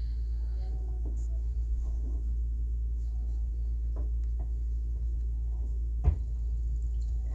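Steady low background hum with a few faint taps, and one louder soft thump about six seconds in.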